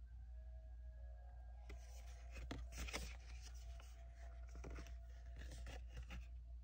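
Cardstock prints handled and swapped by hand: a run of short paper rustles and scrapes, over a low steady hum.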